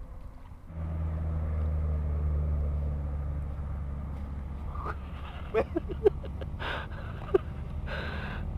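An engine running with a steady low hum that starts abruptly about a second in, with a few short clicks and brief chirps in the second half.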